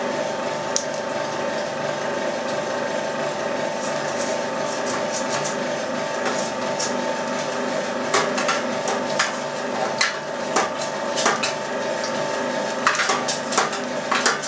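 Electric meat grinder running steadily with a motor hum, grinding chicken and fat through its finest plate. Sharp clicks and knocks come through the hum, more of them in the second half, as meat is pushed down the feed tube.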